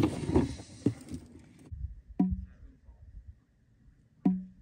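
Single drops of birch sap falling from a PEX-tube spile into a plastic jug, two of them about two seconds apart, each a sharp plink with a short low ring. A stretch of louder noise fills the first second and a half.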